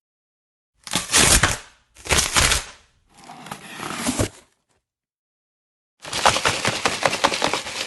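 A run of separate sound-effect clips: three short noisy bursts of about a second each, the third growing louder before it stops, then after a gap a longer burst of rapid clicks and cracks about six seconds in.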